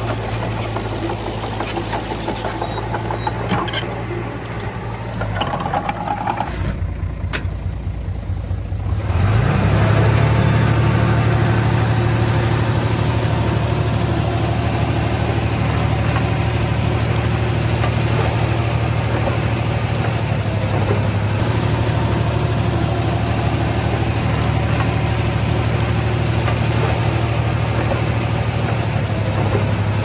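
Diesel engine of heavy earthmoving machinery running steadily. About a third of the way in it picks up with a short rise in pitch and then runs louder.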